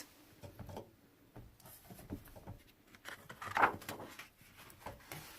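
Paper rustling and light knocks from a picture book being handled and its pages turned, with one louder rustle about three and a half seconds in.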